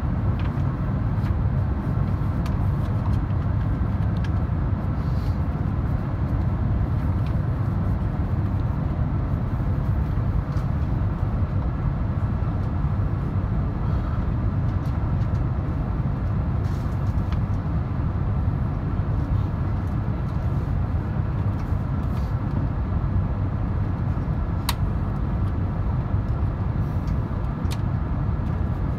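Steady cabin noise inside an Airbus A350-900 on its descent: a low rumble of airflow and the Rolls-Royce Trent XWB engines, with a few faint clicks.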